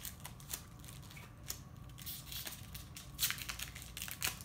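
Pokémon trading cards being handled and flipped through by hand: scattered light snaps and rustles, the sharpest about three seconds in and again just before the end.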